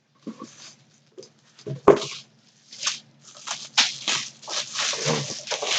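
Cardboard mystery box and its packing being opened by hand: irregular tearing, scraping and rustling, sparse at first and busier and louder in the second half.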